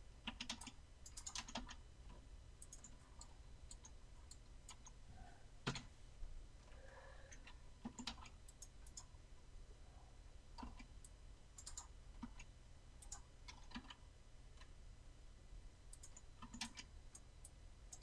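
Faint, irregular clicks of a computer mouse and keyboard keys being pressed, over a low steady hum.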